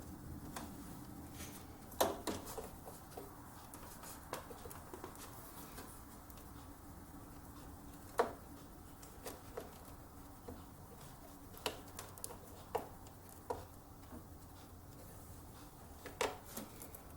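Hands working sleeved PC power extension cables and their plastic connectors inside a computer case: scattered light clicks and taps, the sharpest about 2 s and 8 s in, over a faint steady hum.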